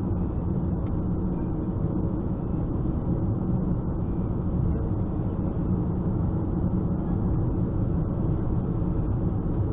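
Steady road and engine noise inside a moving car's cabin, an even low rumble that holds level throughout.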